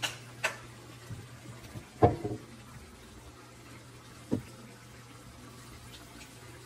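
A few sharp knocks and clinks, the loudest cluster about two seconds in and a last one a little past four seconds, over a steady low hum.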